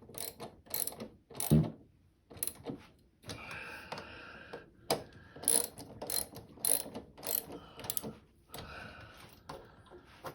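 Ratchet clicking in short irregular bursts as screws fitted with lock washers are snugged up, with a run of sharp clicks about twice a second in the second half.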